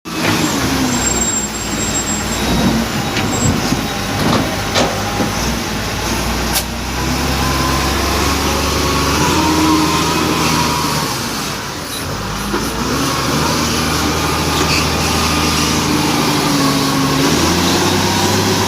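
Bulldozer's diesel engine running under changing load, its pitch rising and falling, with a few sharp metallic knocks in the first seven seconds.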